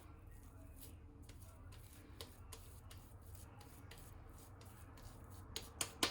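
Quiet handling noise on a kitchen counter: a few faint taps early on, then a quick run of sharper clicks and knocks near the end, over a low steady hum.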